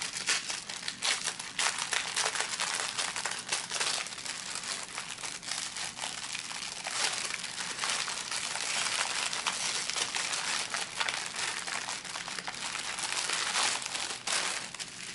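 Plastic packaging around a bag of diamond painting drills being crinkled and unwrapped by hand: a continuous crackle of many small rustles and clicks.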